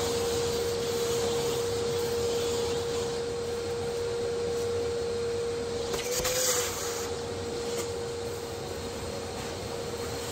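Shop vacuum running with a steady whine as its hose sucks wood chips and drill shavings off a wooden workbench. About six seconds in, a brief louder rush and slight rise in pitch as the nozzle is held over a freshly drilled bolt hole.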